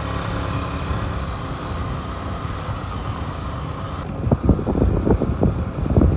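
Motor scooter riding over a dirt road: steady engine hum with tyre and wind noise. About four seconds in the sound changes abruptly to irregular low wind buffeting on the microphone.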